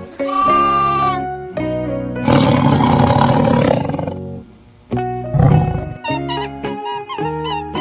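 A big cat roars once, for about two seconds, a little after two seconds in. A shorter, low growl follows near the middle. Children's-style background music plays throughout.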